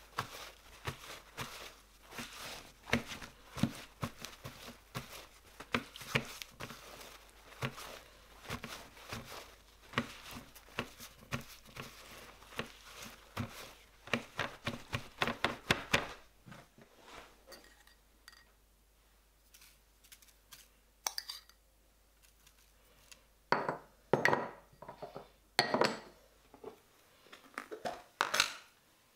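Paper towel crinkling and patting over raw chicken pieces on a metal baking tray, dabbing them dry with fast, irregular rustles and taps for about the first half. After that it goes quieter, with a few short, louder bursts of handling noise near the end.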